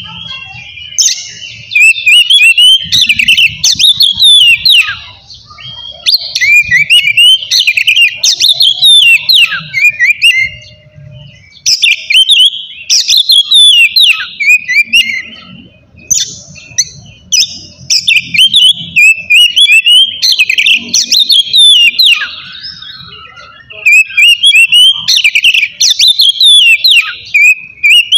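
Oriental magpie-robin (kacer) singing loudly and continuously in its full 'ngeplong' song: bursts of rapid, varied whistled phrases, each a few seconds long, about five in all with short pauses between.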